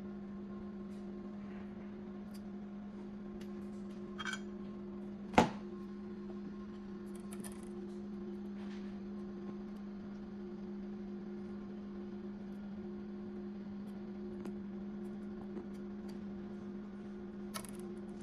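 Steady low electrical hum from powered equipment, with faint ticks and taps of small tools handling the wire bonder's gold wire. One sharp click sounds about five seconds in.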